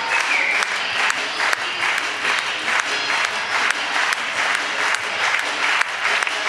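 Audience applauding at a curtain call, the clapping falling into an even beat of about three claps a second.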